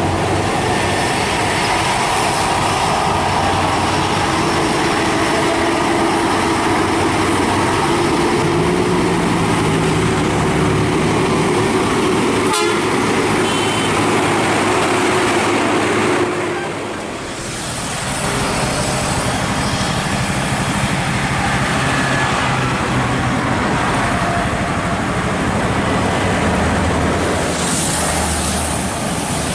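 Heavy diesel trucks, among them a Hino, running as they pass along the road, with steady horn toots sounding in stretches. A sharp click comes about halfway through, and the sound briefly dips a few seconds later.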